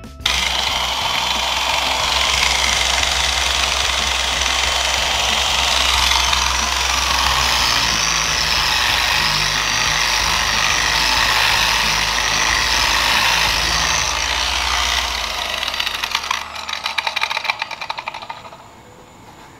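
Electric orbital polisher running steadily with a foam pad, buffing polish on a lacquered wood-veneer panel. It runs down about fifteen seconds in, with some rattling before it stops near the end.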